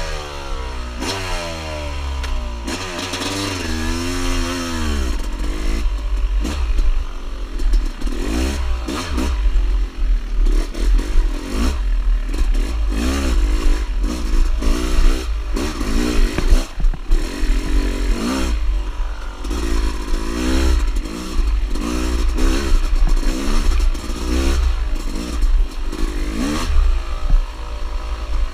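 Dirt bike engine being ridden hard, revving up and down again and again, its pitch climbing and falling about once a second, over a steady low rumble with some clattering.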